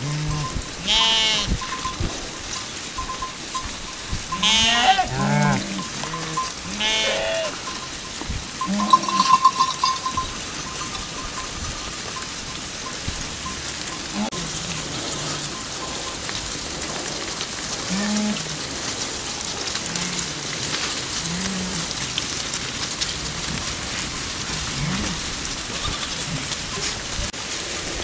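Flock of sheep bleating: several loud, high bleats in the first ten seconds, then shorter, lower calls every second or two over a steady hiss.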